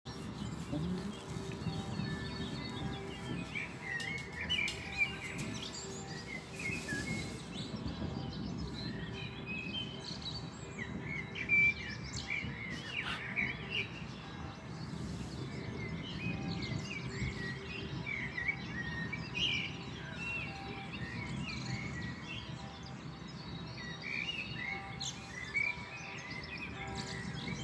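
Many songbirds chirping and singing in quick short phrases, over a steady low background noise.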